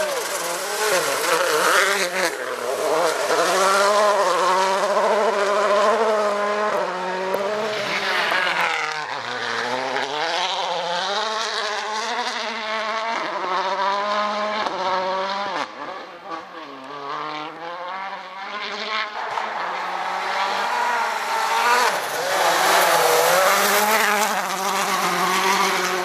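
World Rally Car turbocharged four-cylinder engines driven flat out as cars pass one after another on a gravel stage, the pitch climbing and dropping repeatedly with gear changes and lifts. The sound eases for a few seconds in the middle, then rises again as the next car approaches.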